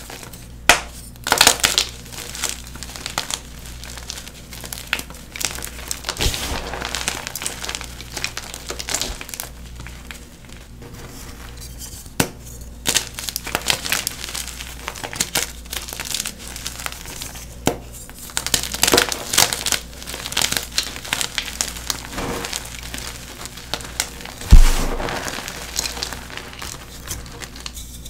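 Halves of blue-dyed NEXO gym chalk blocks being crushed and crumbled: dry, uneven crackling and crunching with scattered sharp snaps. A single heavy thump near the end is the loudest sound.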